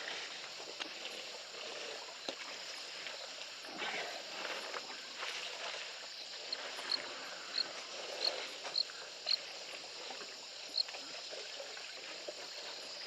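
Water sloshing and splashing in irregular bursts as elephants drink at a waterhole. Through the middle, a short high chirp repeats about once or twice a second.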